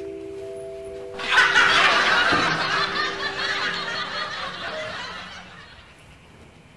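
Canned crowd laughter bursts in about a second in and fades out over the next few seconds, over the tail of a soft music cue.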